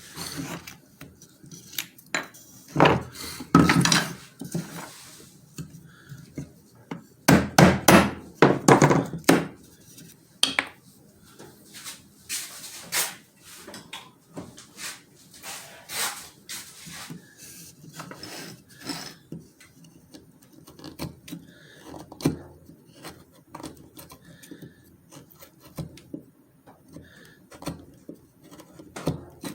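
Small hardwood parts being handled and worked by hand on a bench: a long run of separate wooden taps, knocks and clatter, with two denser, louder spells of knocking and rubbing, one a few seconds in and one about a third of the way through.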